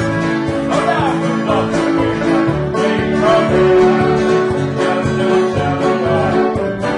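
Country-style music on plucked string instruments, with a voice singing over it.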